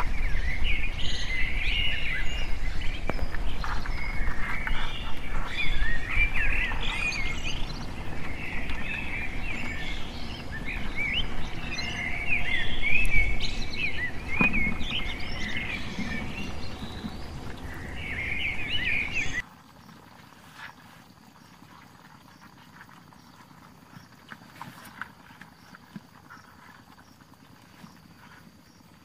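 Many small birds chirping and twittering over a low rumble. About two-thirds of the way through, the sound cuts off suddenly, leaving only a faint hiss with a few soft ticks.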